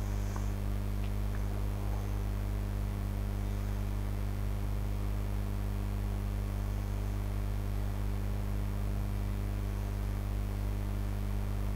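Steady low electric hum, with a buzz of even overtones, from an industrial sewing machine's motor running while a seam is stitched.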